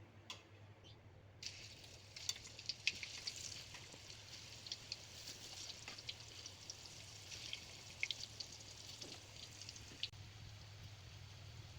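Food frying in hot oil in a pan: a crackling sizzle that starts about a second and a half in and stops shortly before the end.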